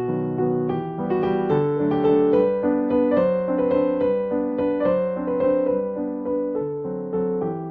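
Background music: a gentle piano melody, its notes struck about twice a second and fading between strikes.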